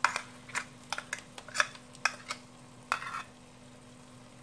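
Wooden spatula scraping and tapping as ground green masala paste is cleared from the grinder jar into a cooking pot: about a dozen short, sharp strokes over the first three seconds, then they stop.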